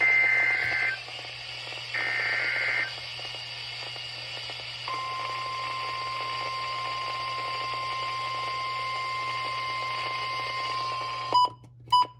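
Two short two-pitch electronic beeps, then a single steady weather-alert tone starting about five seconds in and held for about six seconds, over radio hiss and hum. This fits the NOAA Weather Radio warning alarm tone that comes before a new warning. The tone cuts off near the end, followed by a few brief clicks.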